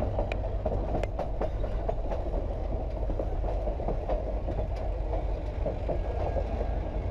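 Durango & Silverton narrow-gauge train rolling on the rails: a steady rumble with scattered clicks and knocks from the wheels and cars.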